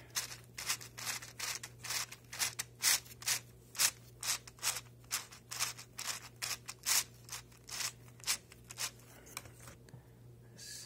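The laser-cut plywood gear mechanism of a UGears model fire truck, turned by hand, clicking dryly about three to four times a second in a slightly uneven rhythm. The clicking stops about a second before the end, followed by one last click.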